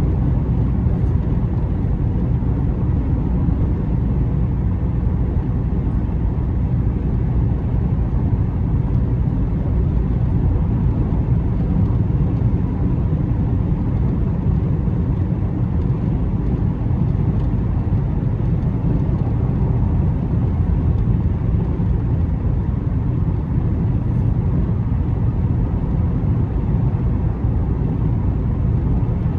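A car driving at a steady pace: continuous low rumble of tyres on the road and engine, with no change in speed.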